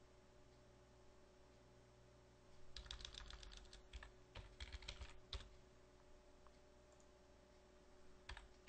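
Faint typing on a computer keyboard. A quick run of keystrokes starts about three seconds in and lasts a couple of seconds, and a few more keys follow near the end. The keys are entering a password at an SSH login prompt.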